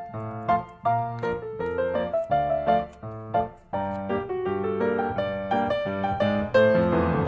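Background piano music: a melody of separate notes over chords.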